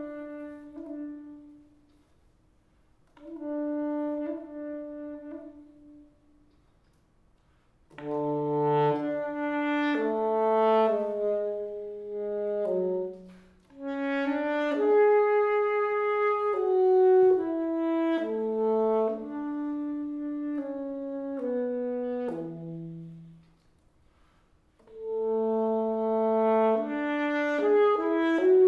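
Solo saxophone playing a melody in separate phrases with short rests between them, one line with no accompaniment. It includes a low note about eight seconds in and a long held note around the middle.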